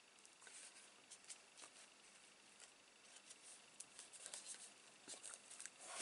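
Faint rustling and light taps of card stock as it is slid and pressed into position by hand on a craft mat, with more frequent small clicks near the end.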